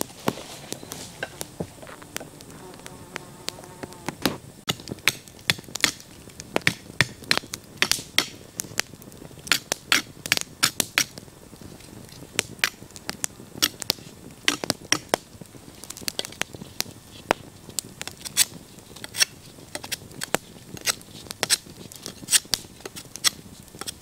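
Small campfire of sticks crackling, with frequent sharp, irregular pops at uneven spacing. A brief buzz sounds in the first few seconds.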